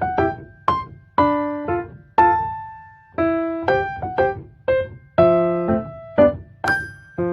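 Background music played on piano or electric piano: a steady run of struck notes and chords, each fading out, over a low bass.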